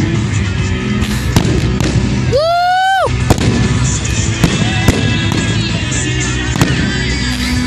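Fireworks exploding in a steady run of sharp bangs. About two and a half seconds in, a brief loud whistle rises in pitch and then holds.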